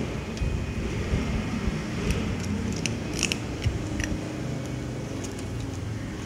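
Cat crunching dry kibble: irregular sharp, crisp crunches, thickest around the middle, over a steady low background rumble.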